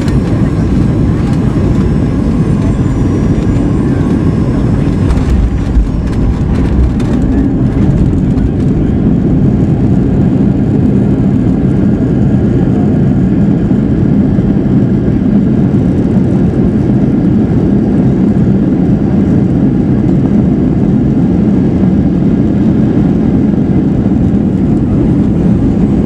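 Cabin noise of a Boeing 737-800 landing, heard from a seat over the wing: a loud, steady rumble of its CFM56 engines and rushing air, with a thump about six seconds in as the wheels touch down. After that a steadier low rumble with a hum as the aircraft rolls out along the runway.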